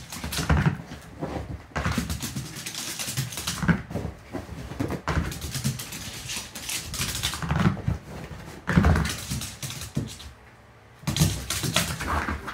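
A dog's claws scrabbling and paws thumping on a hardwood floor as it races around the room in bursts of running. The clatter pauses briefly near the end and then starts again.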